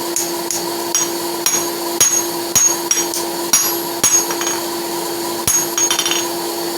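Hand hammer striking a hot steel horseshoe on an anvil, about a dozen uneven blows roughly two a second with a short pause after the middle, each with a bright metallic ring. A steady hum runs underneath.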